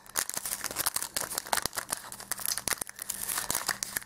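Foil trading-card booster pack crinkling and tearing as it is pulled open by hand, a dense run of crackles.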